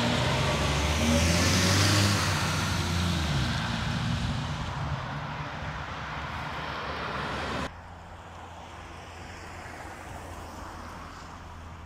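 A car drives past close by over the level crossing, its engine and tyre noise loudest in the first few seconds and then fading as it pulls away. About eight seconds in, the sound cuts off abruptly to a much quieter, steady outdoor background.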